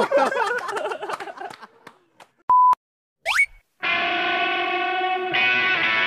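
Voices and laughter trail off, then a short electronic beep and a quick rising swoosh effect sound. A sustained synth chord of background music follows, changing chord about halfway through.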